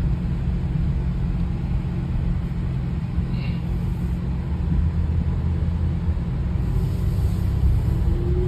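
Infiniti JX35's 3.5-litre V6 engine running steadily with a low, even rumble.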